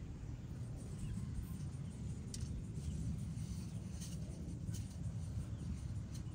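Hands pressing and tucking potting soil around plants in a metal bucket: soft rustling with a few faint clicks, over a steady low rumble.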